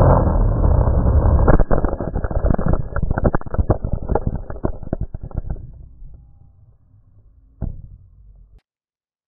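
FPV quadcopter crashing: the motors and propellers run loud, then about a second and a half in a rapid series of hard knocks and clatter as the quad hits and tumbles across the ground. The noise dies away after about six seconds, with one more knock near the end before the sound cuts off.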